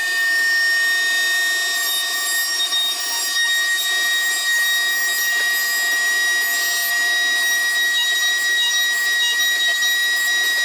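Router in a JessEm router lift running at full speed with a 1/8-inch flush-trim bit, a steady high-pitched whine, as small wooden parts are fed against the bit to trim off the excess.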